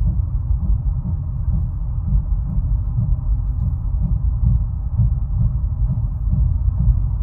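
Low grinding rumble from a wheel of a 2013 Ford F-150, pulsing about twice a second.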